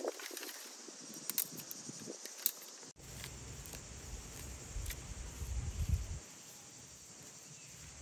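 Dry twigs and sticks rustling and clicking as they are handled and laid for a wood fire, with a few sharp snaps in the first three seconds. After that a steady outdoor hiss, with a low rumble for a few seconds.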